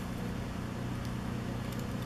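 A steady low hum with a few faint clicks of 3D-printed plastic pieces being handled and pressed together.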